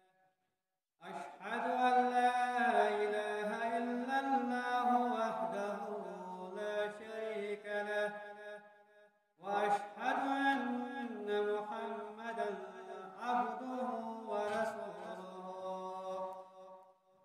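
A man's voice chanting a recitation in long, drawn-out melodic phrases: the first starts about a second in, and a second follows a short break about halfway through.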